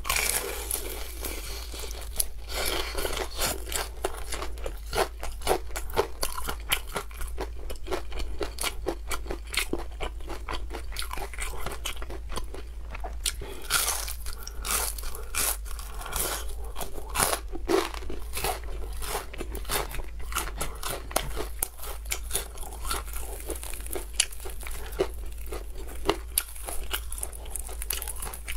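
Close-up crunching and chewing of a crispy breaded fried chicken cutlet, with many sharp, irregular crunches as the crumb coating is bitten and chewed.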